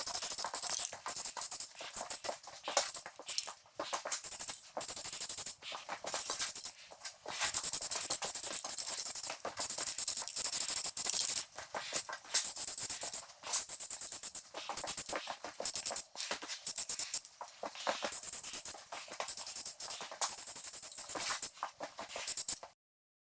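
Aerosol can of automotive primer spraying in many short hissing bursts, on and off, stopping abruptly near the end.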